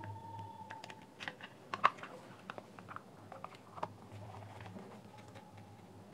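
Irregular small clicks and knocks of a JBL Clip 2 speaker's plastic housing and driver assembly being handled and pressed back together, the loudest click just under two seconds in.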